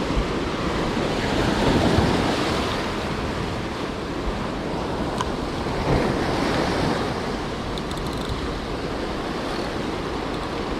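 Rough ocean swells surging and breaking against coastal rocks, louder about two seconds in and again about six seconds in, with wind on the microphone.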